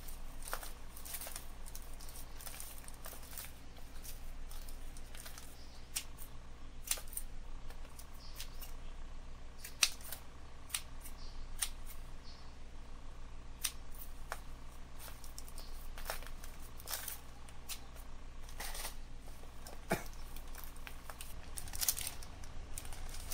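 Scissors snipping through a hibiscus's matted roots in irregular sharp snips, with roots and soil rustling under the hands, as the root ball is trimmed for repotting. A plastic bag rustles near the end.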